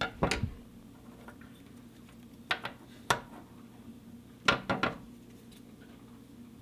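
Steel scissors being handled and snipping thread ends close to a leather seam: several short, sharp metallic clicks in small groups, a second or two apart.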